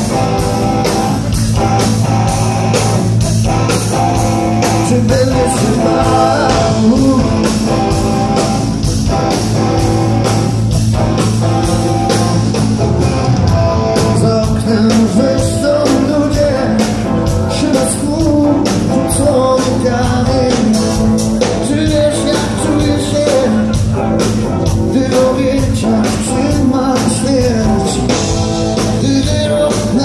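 Blues-rock band playing live on electric guitars and drums, loud and steady, recorded from among the audience.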